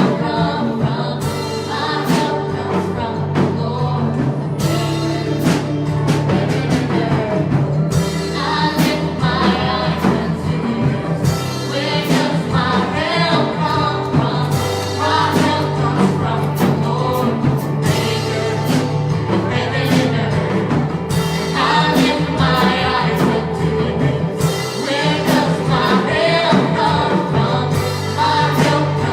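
Worship music: singing over a band with sustained bass notes and regular drum hits.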